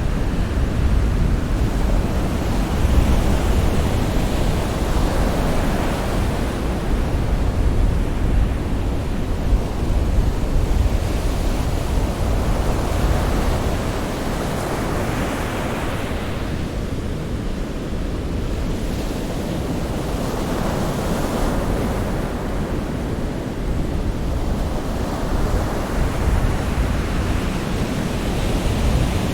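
Sea waves breaking and washing on a shore, a continuous rush of surf that swells and ebbs every few seconds, with a heavy low rumble.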